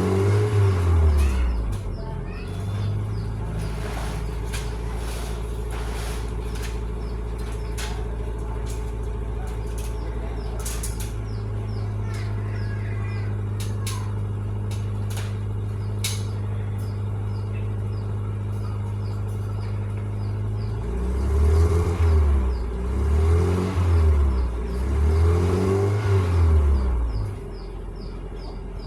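Toyota Corolla GL 1984's original 2A four-cylinder engine: a rev falling back at the start, then a long steady idle, then three quick revs up and back down near the end before the sound drops. Birds chirp faintly in the background.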